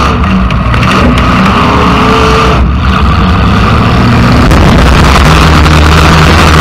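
Demolition derby car's engine running loud and revving as the car drives, heard close up from the car with its hood removed.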